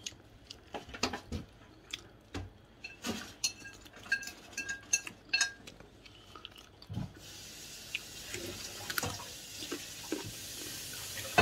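Dishes and cutlery clinking and knocking, some clinks briefly ringing. About seven seconds in, a steady hiss sets in under them.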